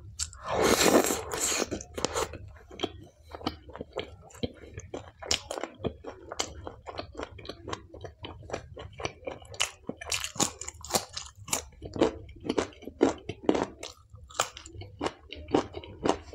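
Close-miked chewing and biting of food: a loud crunchy bite about half a second in, then rapid wet clicks and smacks of chewing, several a second.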